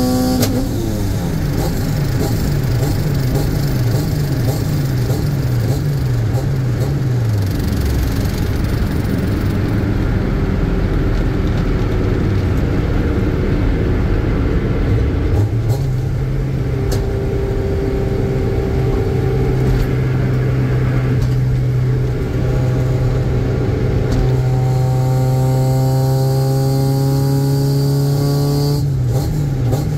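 H2B-swapped Honda Civic's four-cylinder engine heard from inside the cabin while driving. Revs fall at the start and keep stepping down for several seconds, then give way to road rumble. Steady cruising follows, with revs climbing slowly before dropping sharply near the end.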